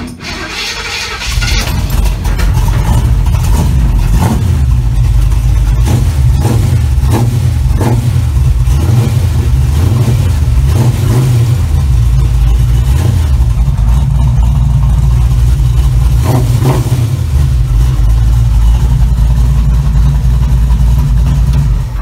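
Small-block Chevy 350 V8 cranked on the starter after a squirt of fuel into the carburettor, catching about a second and a half in and then running steadily and loudly.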